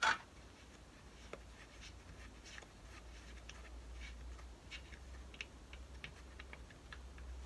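Faint scratching and scattered small clicks of a gloved hand unscrewing the oil drain plug of a Suzuki Address 110 scooter by hand, over a low steady hum.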